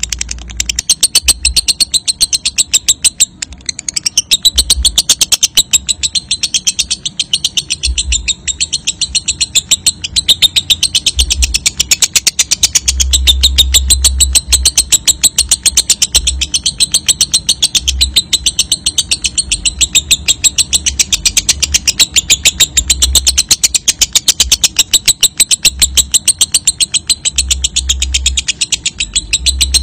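Lovebird 'ngekek': a long, unbroken, rapid high-pitched chattering trill. Low rumbles come and go underneath.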